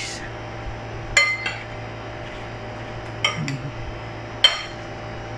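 Two metal serving spoons clinking in a glass bowl as they toss a leafy green salad: a few sharp, briefly ringing clinks, in pairs about a second in and about three seconds in, and one more about four and a half seconds in.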